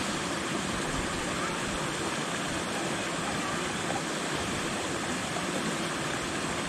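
Steady rush of a creek pouring over rock ledges in a small waterfall below.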